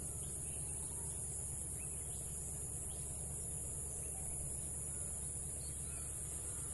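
A steady, high-pitched insect chorus over a low outdoor rumble, with a few faint bird chirps.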